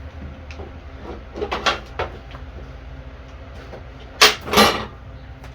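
Tools and mower parts being handled on a makeshift workbench, over a steady low hum: a few light knocks about a second and a half in, then two loud clanks a little after four seconds.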